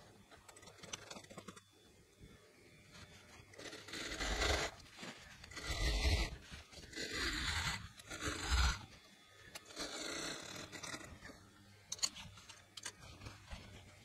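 Cream lining fabric rustling and sliding as it is handled and smoothed, in several louder surges through the middle, then softer, scattered rustles.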